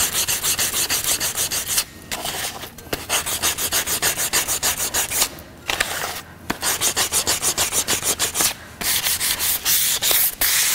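400-grit sandpaper on a block, hand-sanding the edges and corners of a shellac-coated wooden print block. Quick back-and-forth rubbing strokes, about four a second, with a few short pauses.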